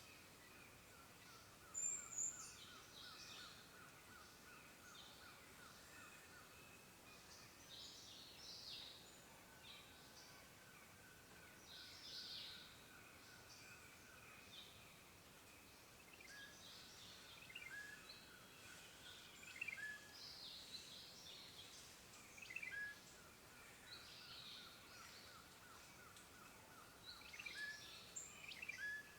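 Faint forest birdsong: several birds chirping and calling in short scattered notes, with repeated short chirps in the second half. A fast, even trill comes and goes underneath.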